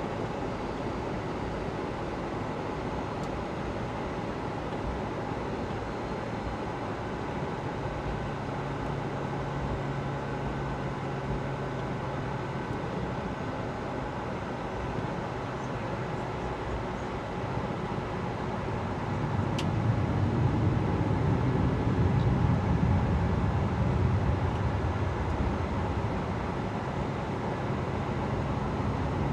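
Cabin noise inside a Boeing 757-200 with its Pratt & Whitney PW2037 turbofans at low power: a steady rumble and hiss. The engine rumble swells about two-thirds of the way through, then eases off. A single sharp click sounds just before the swell.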